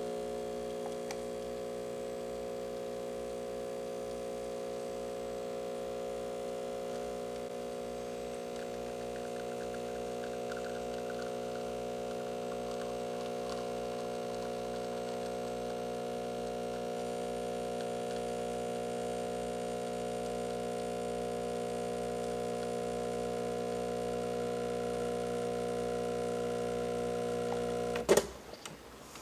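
Breville Barista Express espresso machine's vibratory pump humming steadily while extracting an espresso shot, then cutting off near the end as the shot is stopped.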